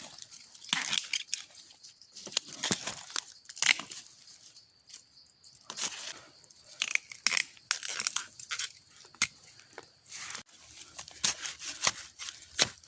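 Dry bamboo leaves and plant litter crackling, snapping and tearing in irregular bursts, as the bamboo clump is worked through by hand, with brief lulls twice.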